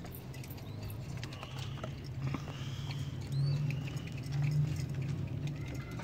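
Pigeons shuffling and scratching about on a loft floor, a light patter of small clicks, over a low steady hum that swells twice in the second half.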